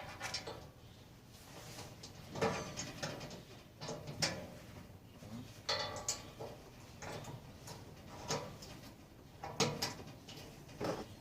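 Metal clinks and scrapes as clip pins are worked into place on a grill smoker's lid, about ten separate short knocks spread over the stretch, some ringing briefly.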